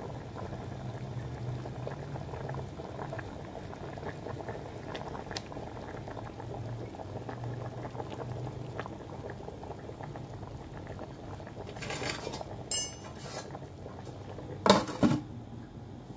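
Nihari gravy boiling hard on a high flame in a large aluminium pot, a steady bubbling with small pops. About twelve seconds in there is a brief metallic rattle, then the aluminium lid clanks down onto the pot twice, the loudest sounds here.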